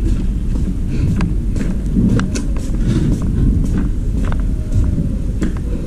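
Footsteps on concrete, about two a second, over a steady low rumble.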